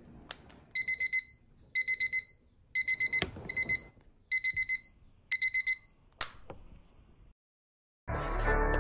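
Digital alarm clock beeping in quick groups of four short, high beeps, about one group a second, six groups in all, then stopping; a sharp click follows about six seconds in. Music starts near the end.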